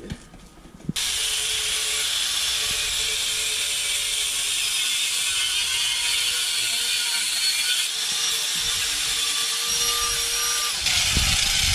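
Handheld angle grinder with a cut-off wheel starting up about a second in and cutting through a metal piece clamped in a bench vise: a steady, loud grinding hiss with a faint motor whine underneath.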